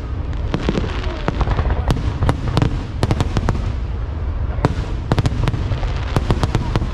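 Fireworks display: many sharp bangs and crackling pops in quick, irregular clusters over a continuous low rumble.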